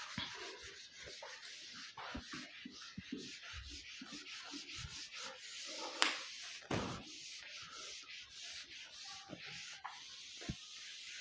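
Whiteboard being wiped clean with a hand-held duster: repeated scrubbing strokes of the duster across the board, with a sharp tap about six seconds in.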